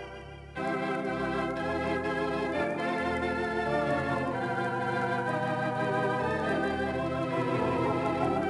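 Theatre organ playing: a held chord breaks off at the start, and after a short pause a new passage comes in with a moving pedal bass under chords and melody, the notes wavering with the organ's tremulant.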